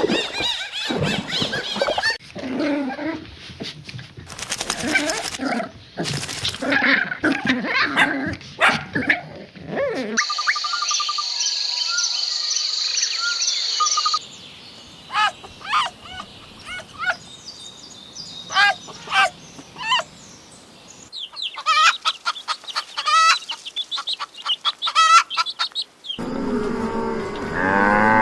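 A run of different animal calls one after another: assorted squawks and bird chirps, then a cow mooing near the end.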